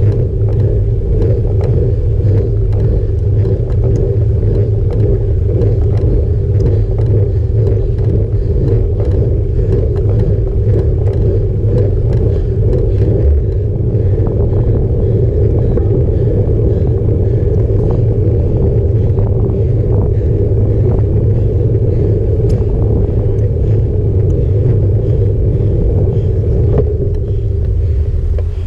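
Steady low rumble of a road bike rolling over rough asphalt: tyre and road vibration carried into the handlebar-mounted camera, with light ticks from the road surface.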